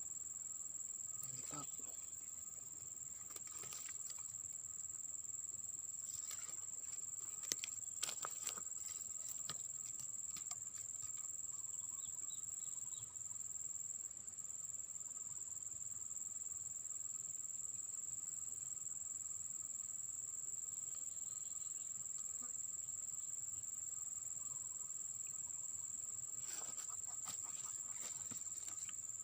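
Insects shrilling in a continuous steady high-pitched tone, with a few sharp clicks about eight seconds in.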